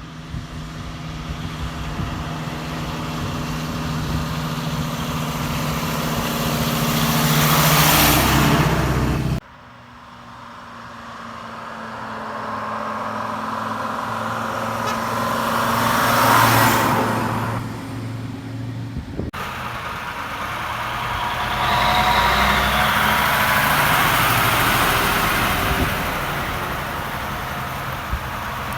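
Three vintage Krupp lorries with two-stroke diesel engines driving past one after another, each engine growing louder as it comes close and then falling away. The passes are joined by sudden cuts.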